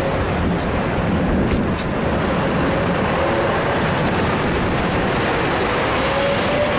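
Steady road-traffic and riding noise picked up by a camera on a moving bicycle: a dense, even rush with a faint wavering whine that rises slightly near the end.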